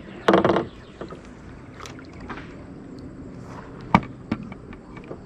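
Handling knocks in a canoe over a faint background of water. There is a short louder sound just after the start, and a sharp knock about four seconds in, the loudest, followed by a smaller one.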